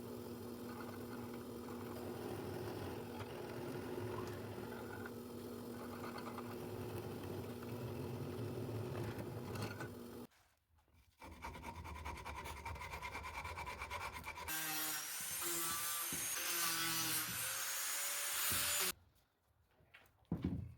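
Woodworking tools working wood, heard in several takes that change abruptly. The loudest take, near the end, has a rising whine and stops suddenly.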